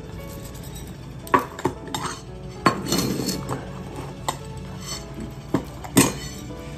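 Metal cat food bowls clinking and knocking as several cats eat from them: about six sharp clinks spread unevenly, the loudest near the end.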